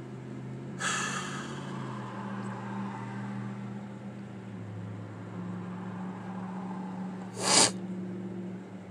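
Short breath noises from a man sitting in a stopped car: an exhale about a second in, then a sharp sniff through the nose near the end, the loudest sound. Under them runs the car's steady low hum.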